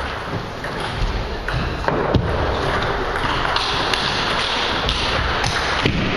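Scattered taps and thumps of table tennis play: a ping-pong ball striking bats, table and the wooden floor, with footsteps, over a steady noisy hall background. The strongest knocks come about two seconds in and again near the end.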